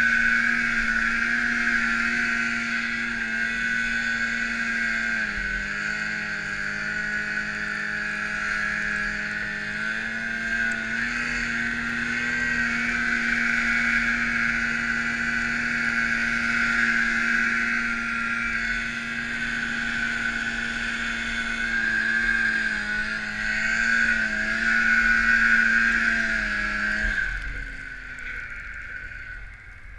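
Snowmobile engine running hard under throttle while the sled ploughs through deep snow, its pitch dipping briefly a few times. The engine note drops away about three seconds before the end.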